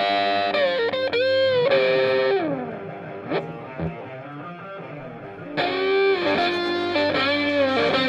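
Music led by a distorted electric guitar playing sustained, bent notes. There are two loud phrases, one at the start and one about five and a half seconds in, with a quieter stretch between them.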